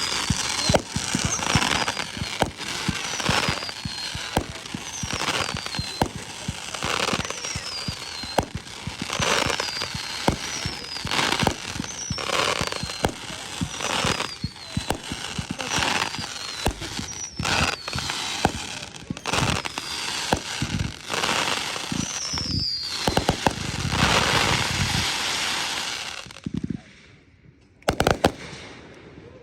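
Consumer fireworks going off: a dense run of bangs and crackling, with a short falling whistle about every second or so. The barrage stops about three seconds before the end, leaving a few sharp pops.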